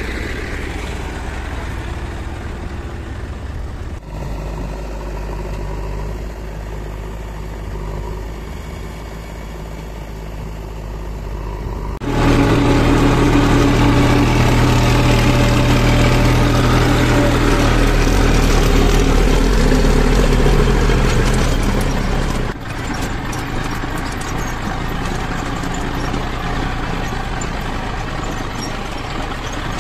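Diesel farm tractor engines running. A tractor beside its loaded mud trolley runs steadily at first; about twelve seconds in the sound jumps louder, a Massey Ferguson tractor's engine heard from the driver's seat as it drives, and some ten seconds later it drops back to a quieter, steady engine as a tractor pulls a loaded trolley away.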